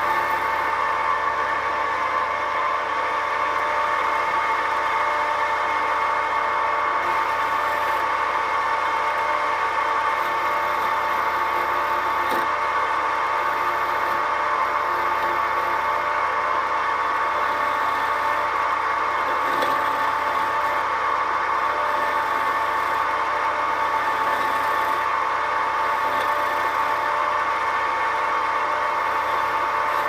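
Record CL1 wood lathe running steadily with a constant motor whine, while a roughing gouge cuts a spinning teak blank, a continuous shaving hiss as the blank is roughed down smooth.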